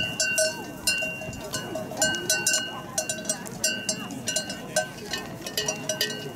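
Bells worn by a flock of Racka sheep clanking irregularly, a few strikes a second, as the flock is driven along; a second, differently pitched bell comes in near the end.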